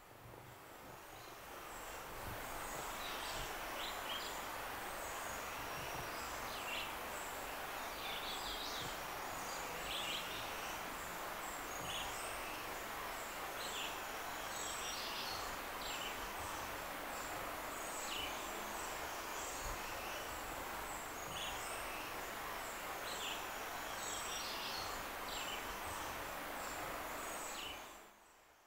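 Outdoor nature ambience: a steady hiss with many short, scattered bird chirps over it. It fades in at the start and fades out near the end.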